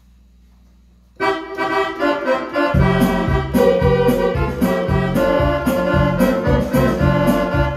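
Electronic keyboard playing an instrumental tune. After a faint hum, the melody starts about a second in, and a bass-and-drum accompaniment with a steady beat joins about a second and a half later.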